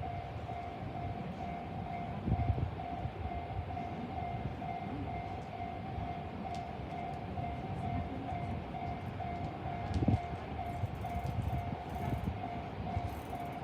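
Japanese railroad crossing warning bell ringing in a rapid, regular ding-ding pattern, over the low rumble of a Saikyo Line commuter train passing the crossing.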